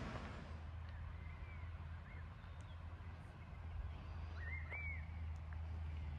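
Birds chirping in short rising-and-falling calls, loudest about four and a half to five seconds in, over a steady low hum.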